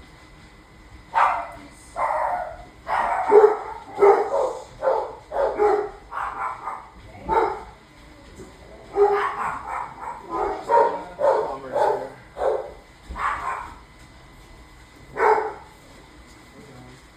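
Dogs barking, loud, in runs of several barks about a second apart with short pauses between the runs.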